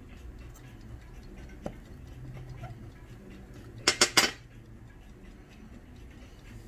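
Three quick, sharp clinks of hard objects knocking together about four seconds in, as a small toy figure is lifted off its pedestal. There is one faint click earlier.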